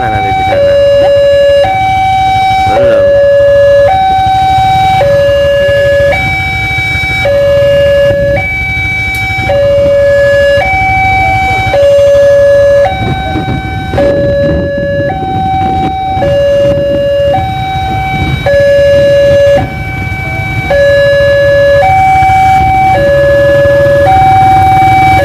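Railway level crossing's electronic warning alarm sounding a repeating two-tone signal, a low note and a higher note alternating about once a second, warning that a train is approaching. A low engine rumble runs beneath it.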